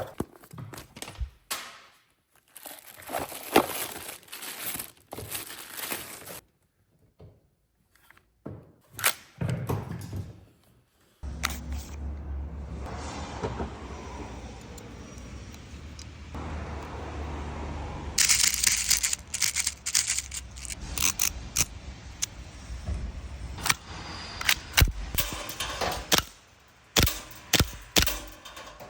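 Handling of a Desert Eagle L6 airsoft pistol: scattered sharp clicks, clacks and knocks. A steady low hum comes in near the middle, and the knocks come thick and fast in the later part.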